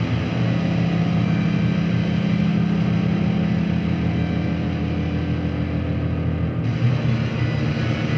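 Ambient drone music: a dense, sustained low drone of layered steady tones with a haze above, whose upper hiss thins out about six and a half seconds in.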